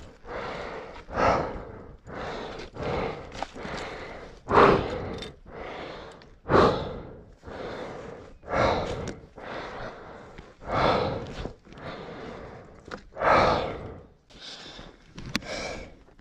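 A man breathing hard through heavy, loud breaths, one about every two seconds, out of breath from exertion.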